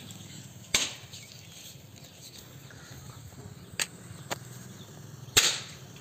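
A snake-tablet firework burning, with four short sharp cracks, the loudest about five seconds in, over a low steady hum.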